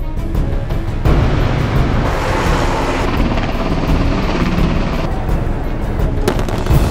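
MH-6 Little Bird light helicopter flying past, its rotor and engine noise coming in suddenly about a second in and falling away about five seconds in. Background music with a steady beat plays under it.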